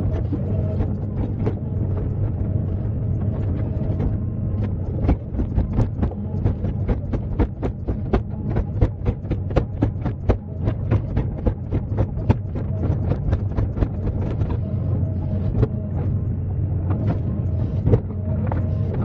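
Excavator's diesel engine running steadily, with a rapid run of knocks and clanks through the middle.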